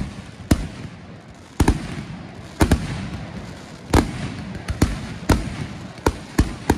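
Aerial fireworks shells bursting in a rapid, irregular series of sharp bangs, about a dozen, some in quick pairs.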